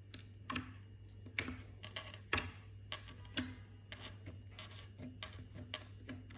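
Crystal-clear slime being pressed and worked by hand, giving an irregular series of sharp clicking pops, a few each second.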